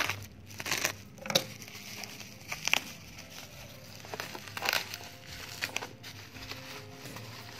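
Bubble wrap and cardboard packaging crinkling as hands handle it, in short irregular rustles about every second or so.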